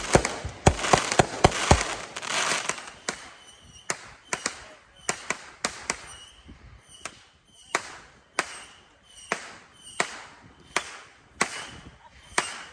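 Fireworks going off. For about the first two seconds there is a dense barrage of crackles and sharp bangs, then single sharp reports follow at a steady pace, roughly one and a half a second.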